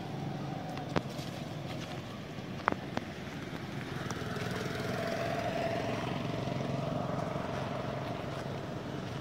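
An engine running steadily, growing louder about halfway through, with a few sharp clicks in the first three seconds.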